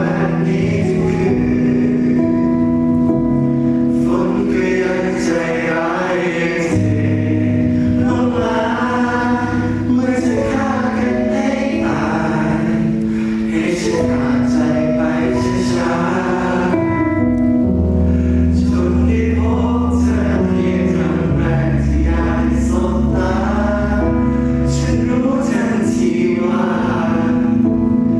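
Live pop song played over a concert sound system: sung vocals over a backing track with sustained chords and a bass line.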